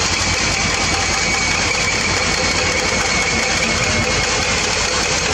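Large diesel engine of heavy equipment idling steadily with a fast, even clatter and a faint high whine over it.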